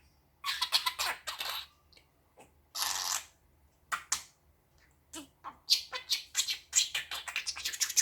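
Budgie chattering: short bursts of high chirps and warbles with gaps between, turning into a quicker run of chirps over the last few seconds.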